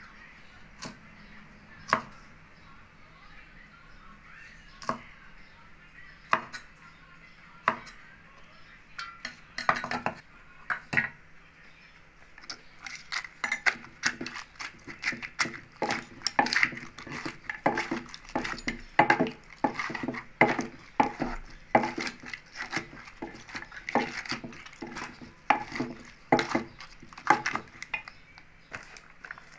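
Wooden pestle pounding vegetables in a wooden mortar, with a metal spoon clinking and scraping against the mortar as it turns the mix. The first few seconds hold only single knocks, about one every second or two; from about nine seconds in the knocks and clinks come several a second.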